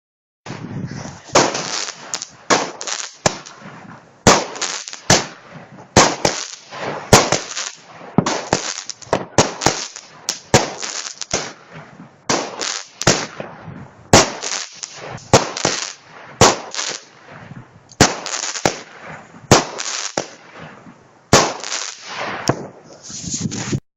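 Consumer fireworks battery (cake) firing a long run of shots, about one or two sharp bangs a second, each trailing off in a short crackling hiss.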